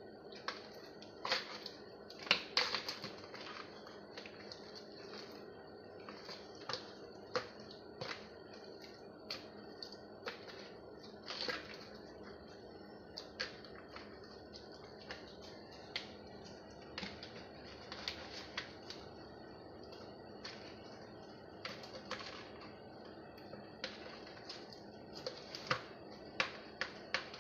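A hand mixing whole raw fish in a plastic basin: irregular short clicks and wet slaps as the fish knock against each other and the basin. A faint steady hum runs underneath.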